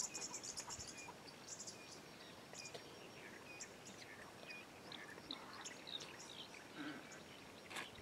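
Faint chorus of several birds: scattered short chirps, whistles and high trills over a steady background hiss.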